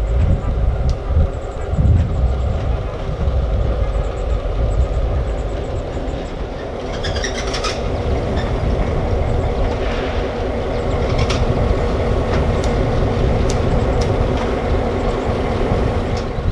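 EMD GP9 diesel locomotive rolling slowly past, its two-stroke 567 engine droning steadily. A brief high squeal comes about seven seconds in, and sharp clicks from the wheels on the track follow in the second half.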